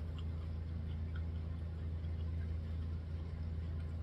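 Steady low background hum, with a few faint scattered clicks of quiet chewing on corn on the cob.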